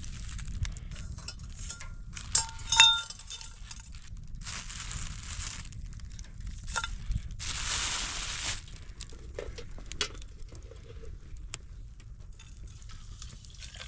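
Plastic bag of dried herb tea rustling and crinkling as it is handled, with a metal teapot lid clinking and ringing briefly about two and a half seconds in, the loudest sound. Two longer bursts of rustling come around five and eight seconds in, and near the end water is poured from a kettle into the metal teapot.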